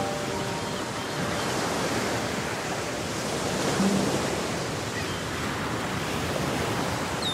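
Steady rushing noise of an outdoor ambience, with no music.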